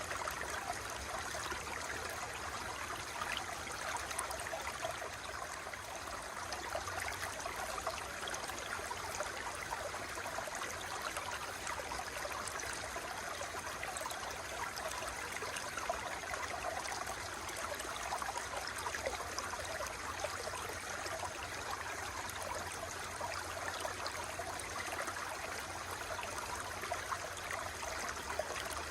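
Running water flowing steadily, a dense, even splashing and gurgling that never pauses or changes.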